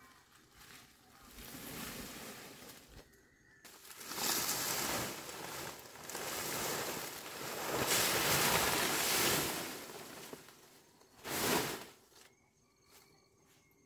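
Wind blowing in gusts, swelling over several seconds and easing, with one short strong gust near the end. Insects chirp faintly once it dies down.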